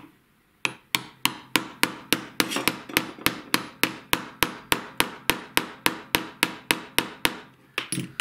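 Small hammer tapping metal on metal in a steady run of light blows, about three to four a second, driving an AR-15 gas tube home into a new gas block. Near the end there is a short pause, then two quick taps.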